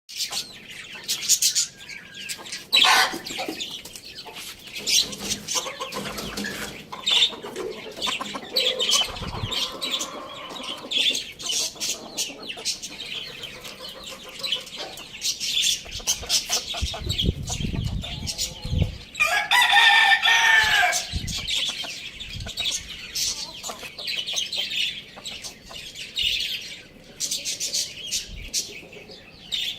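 Chickens clucking, with constant high-pitched chirping and peeping, and a rooster crowing once about twenty seconds in. There are a few low thumps just before the crow.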